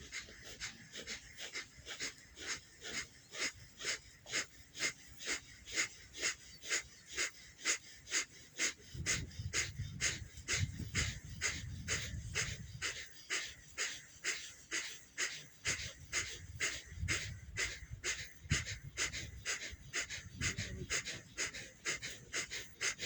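Rapid, forceful breaths pumped through the right nostril with the left one closed, in an even rhythm of about two and a half a second: single-nostril Kapalabhati-style breathing, counted to 54. A low rumble comes and goes in the middle.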